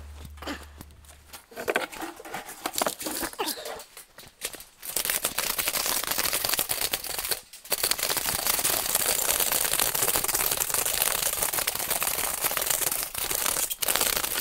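Close rustling and crinkling, scattered at first, then dense and steady from about five seconds in, with a short break in the middle.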